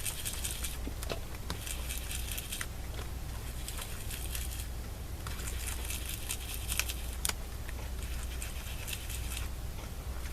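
Foam ink dauber rubbed in circles over a stencil on card stock: a soft scratchy rubbing that comes and goes in stretches of a second or two, with a few small clicks, over a steady low hum.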